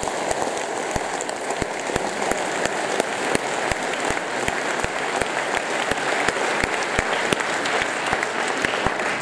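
Large audience applauding steadily, with many single claps standing out in the wash of clapping.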